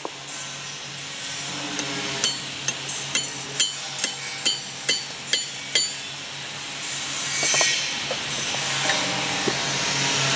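A copper hammer tapping a steel bolt into the side of a forging-hammer piston: about ten sharp, ringing metallic taps, roughly two a second, stopping about six seconds in. A low steady hum runs underneath.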